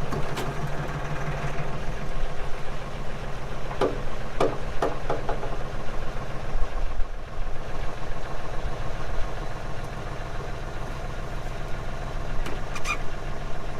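Valmet 505 tractor's diesel engine running steadily at idle, with a few short squeaks about four to five seconds in and another near the end.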